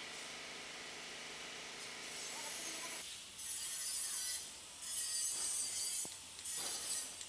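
Gravity-feed paint spray gun hissing as compressed air atomises paint onto a car body panel. The hiss is steady for about three seconds, then comes in three bursts of about a second each with short gaps, as the trigger is pulled for each pass.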